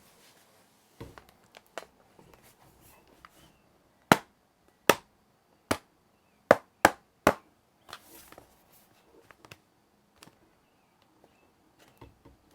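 A 2009 13-inch MacBook Pro being handled: a few soft knocks, then six sharp clicks or taps over about three seconds, then a few fainter ones.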